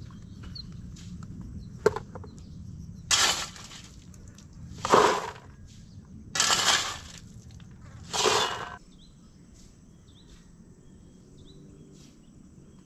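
Gravel and stones rattling into a bucket as they are scooped from a pile: four scoops about a second and a half to two seconds apart, after a single sharp click about two seconds in.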